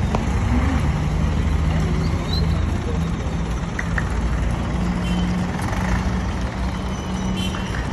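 Street traffic with a bus engine running slowly close by, a steady low drone.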